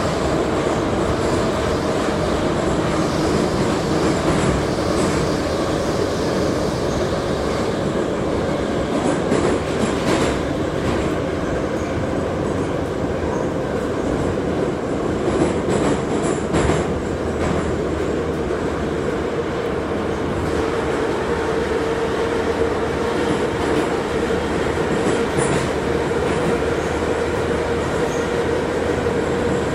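81-717/714 metro train running between stations, heard from inside the car: a steady rumble of wheels on rails with a constant hum, and a few sharp clicks from the rail joints.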